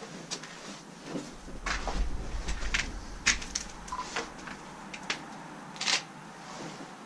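Irregular sharp clicks and knocks, the loudest about three seconds in and near the end, with a low rumble in the first half.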